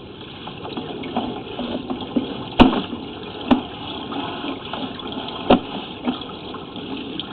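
Water running and gurgling through a cast iron sewer line, with three sharp knocks, the loudest about two and a half seconds in.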